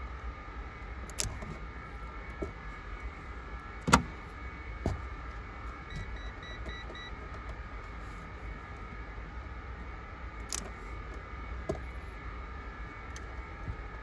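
Self-adjusting wire stripper clicking and snapping as it grips and strips insulation off thin automotive wires: a handful of sharp clicks, the loudest about four seconds in, over a steady low hum.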